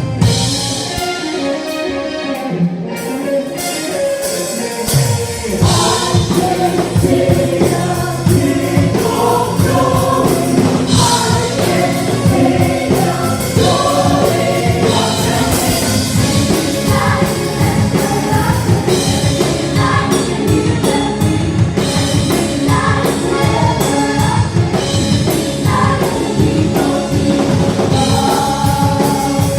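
Gospel music from a band with a choir singing; bass and a fuller beat come in about five seconds in.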